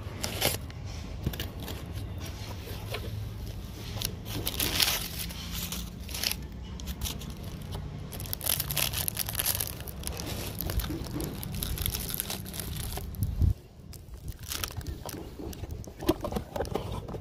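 Packing tape being peeled and torn off a cardboard box and the flaps opened, then the crinkling and rustling of a clear plastic bag around a toy tractor as it is handled and lifted out, in irregular short bursts.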